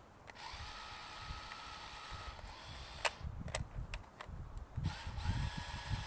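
Small electric motor of a home-made remote-control moving-target carrier, running at its high setting with a steady whine that stops for a few seconds and starts again near the end at a higher pitch. Near the middle come two sharp cracks about half a second apart.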